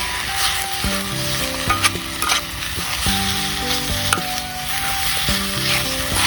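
Food sizzling in a hot frying pan and being stirred, with scattered sharp pops and utensil clicks. Background music with held, changing notes plays underneath.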